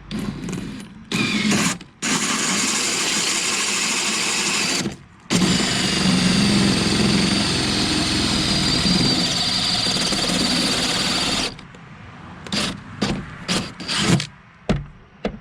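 Power drill cutting a hole through a fiberglass sailboat: a short burst, a run of about three seconds, a brief stop, then a steady run of about six seconds. After it stops come a few sharp knocks and clicks.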